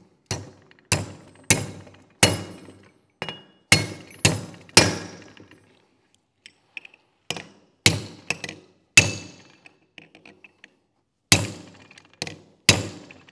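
Steel hammer blows on metal, driving a pin with a punch into a GM G80 differential case. There are about sixteen sharp, ringing strikes in quick groups, with a pause of a couple of seconds around the middle.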